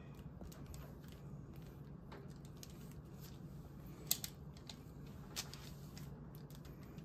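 Table knife spreading creamy peanut butter on a slice of soft white bread, soft scraping strokes, with a sharp click about four seconds in as the knife knocks against the peanut butter jar while scooping more.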